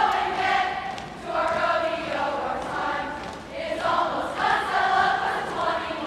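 A group of voices singing together, in phrases of about two seconds with brief breaks between them.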